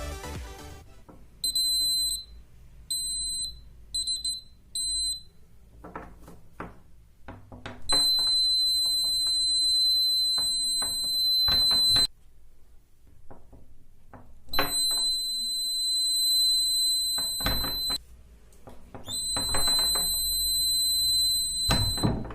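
Buzzer of a homemade laser tripwire alarm sounding one steady high-pitched tone, first as four short beeps and then in three long stretches of three to four seconds each, with clicks and knocks in between. It sounds while the laser beam is broken.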